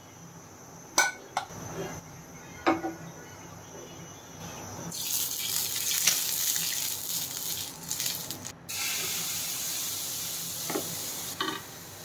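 A few sharp knocks in the first three seconds. Then, about five seconds in, oil in a hot frying pan starts sizzling with a loud, even hiss as it is brushed over the pan; the hiss breaks off for an instant and carries on until shortly before the end.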